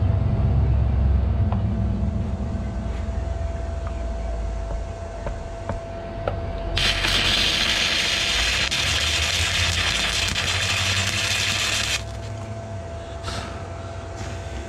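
Electric arc welding on a steel saddlebag bracket: a low hum under it, then about seven seconds in the arc crackles steadily for about five seconds and stops abruptly, with a short crackle a second later.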